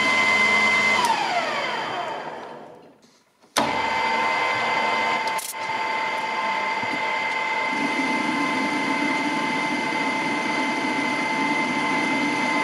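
EMCO Maximat Super 11 metal lathe running with a steady gear whine while turning the workpiece. About a second in the whine slides down in pitch and dies away to near silence, then the lathe is running again abruptly at about three and a half seconds and stays steady.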